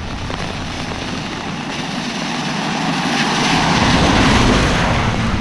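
A vehicle passing on a wet road, its tyre hiss swelling to a peak about four seconds in and then easing, over a low rumble.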